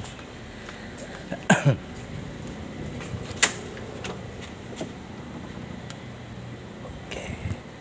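Handling noises of someone climbing into a truck cab: a few short knocks and rustles, the loudest two close together about a second and a half in, another about two seconds later and a rustle near the end, over a steady low background hum.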